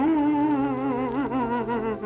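Cartoon cow's crying wail: one long cry with a wavering, wobbling pitch that breaks off briefly near the end, over a held low note in the score.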